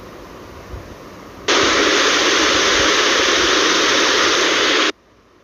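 Loud burst of even, static-like hiss, about three and a half seconds long, that starts and cuts off abruptly. A faint background hiss comes before it.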